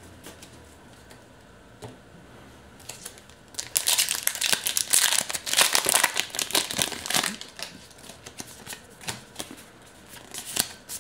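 Foil Pokémon trading-card booster pack wrapper crinkling loudly as it is torn open, from about four to seven seconds in. Afterwards the cards inside are handled and fanned out, with light clicks and rustles.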